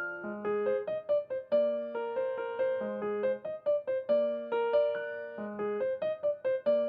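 Background music: a light, repeating melody of short notes on piano or electric piano.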